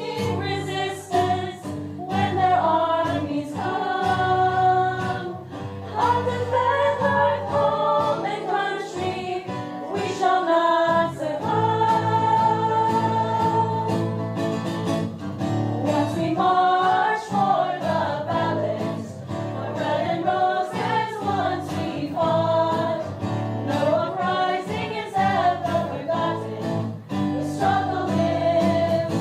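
A group of voices singing a hymn together, with held, melodic sung lines over a strummed acoustic guitar.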